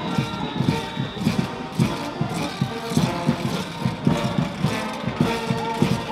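Parade band music with a steady drumbeat and held instrumental tones.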